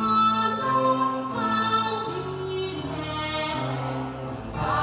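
Live musical-theatre song: voices singing a run of held notes over orchestra accompaniment, heard from the audience in the theatre.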